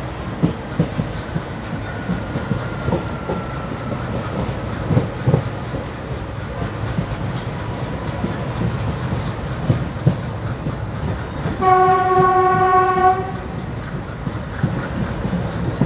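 Running noise of a passenger coach hauled by a WDM3D diesel locomotive: a steady low rumble with wheels clattering over rail joints. About twelve seconds in, one horn blast, about a second and a half long, sounds from the locomotive ahead.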